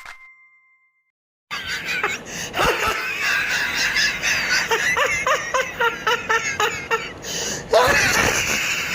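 A group of people laughing hard together, many voices overlapping, starting after about a second and a half of silence and swelling into a louder burst near the end. The last note of a short jingle fades out at the very start.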